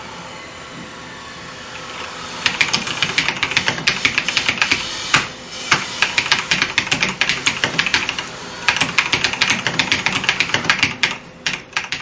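Fast typing on a Lenovo Y Gaming mechanical keyboard with Kailh Red switches: a dense run of rapid keystrokes that starts about two seconds in, with a couple of brief pauses.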